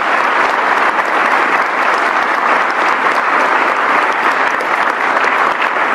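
Large audience applauding steadily in a lecture hall, a dense, even clapping that lasts throughout.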